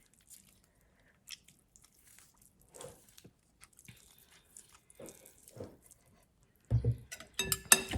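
Chewing and biting crunchy chicken-feet salad: soft, scattered crunches, then louder crunching and clicks in the last second or so.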